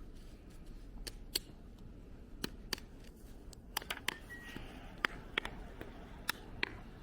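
Snow crunching and scraping: a dozen or so irregular, sharp crisp crunches as snow is dug and packed, over a low steady outdoor rumble.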